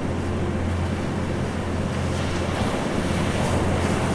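Ocean surf washing steadily onto a beach, with a low steady drone underneath.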